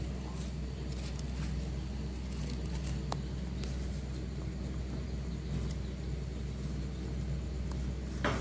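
A steady low hum, with a few faint crinkles and ticks as fingers handle the charred banana-leaf wrapping of roasted bamboo mushrooms, and one louder crackle near the end.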